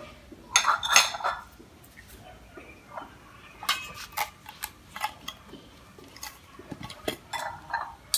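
Small ceramic bowls and a kitchen cleaver being picked up and set down, with irregular clinks and knocks.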